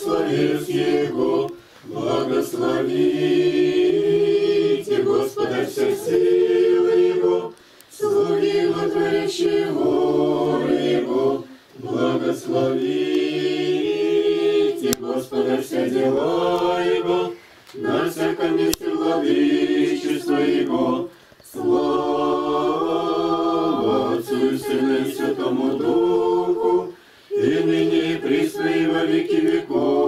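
A congregation chanting Orthodox liturgical singing a cappella in Church Slavonic, men's and women's voices together on slow, held notes. The singing comes in phrases a few seconds long, broken by short breath pauses.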